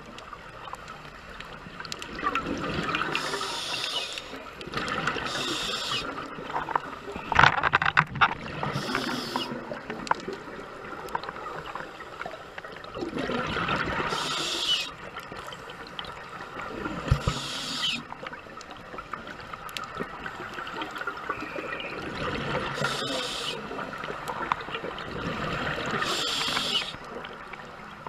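Scuba breathing through a regulator, heard underwater through a camera housing: a continuous bubbling gurgle of exhaled air, broken about every four to five seconds by a short rush of hiss.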